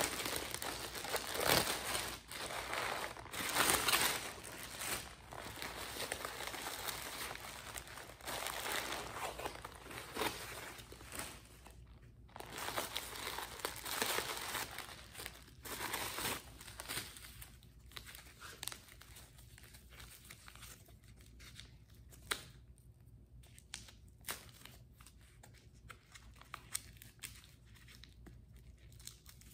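Plastic packaging and paper stuffing crinkling and rustling as a new handbag is unwrapped by hand. Dense and fairly loud for the first half, then thinning to scattered crackles and light taps.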